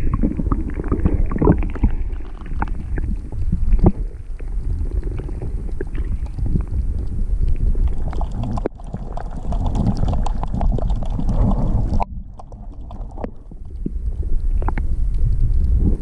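Muffled underwater water noise heard through a submerged camera: a dense low rumble of churning, sloshing shallow seawater, scattered with small clicks and knocks. It eases off for a second or so a little past the middle, then builds again.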